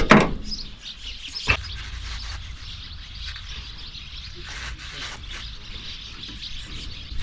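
Small birds chirping, with two sharp knocks from handling near the start, one right at the outset and another about a second and a half in.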